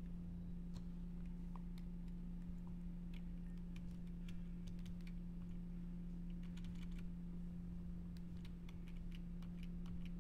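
Faint, irregular clicking of computer keyboard keys being tapped, in small clusters, over a steady low electrical hum.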